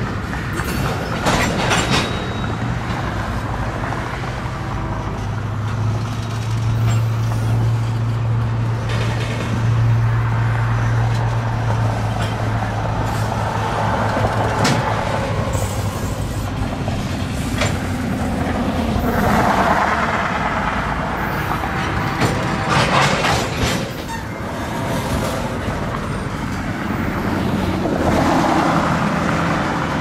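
Freight train's tank cars rolling past: a steady rumble of steel wheels on rail, broken by irregular clicks and clanks as wheels pass over rail joints.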